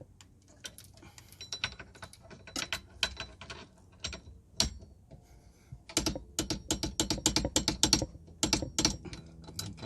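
Ratchet of a torque wrench clicking in runs as the steering wheel nut is tightened, with the fastest run of clicks in the second half.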